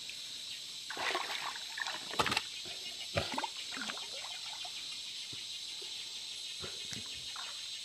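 Water splashing and sloshing in a few short bursts, loudest between one and two and a half seconds in, over a steady chorus of insects.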